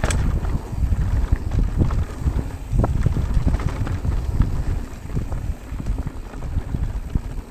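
Wind buffeting the microphone with a continuous low rumble, and many small irregular clicks and rattles from a mountain bike rolling fast down a dry dirt trail.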